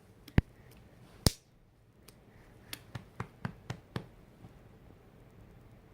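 A small child's hand patting an adult's back as if burping a baby: two sharp single pats in the first second and a half, then a quick, even run of about six pats at roughly four a second in the middle.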